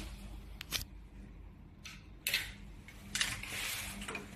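A few light clicks and short rustles of handling, two sharp clicks close together early, then scraping rustles, over a faint steady low hum.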